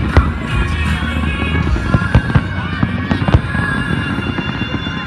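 Aerial fireworks bursting in a quick, irregular string of bangs and crackles, with music playing behind them.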